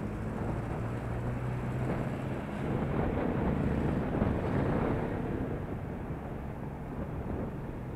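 Wind buffeting the microphone of a camera moving down a city street, over street traffic noise. A low engine hum sounds in the first couple of seconds, and the noise swells louder for a couple of seconds in the middle.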